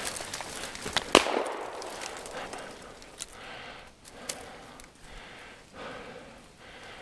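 Footsteps crunching through snow and dry brush, with twigs snapping sharply about a second in, then steady steps about once a second.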